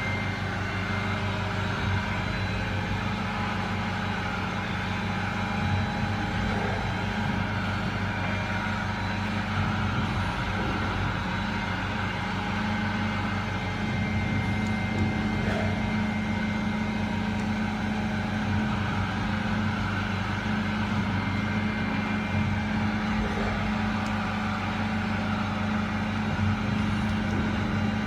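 CNC grinding machine for carbide-tipped circular saw blades running with a steady electric hum and whine, with a faint brief change in the sound every eight seconds or so.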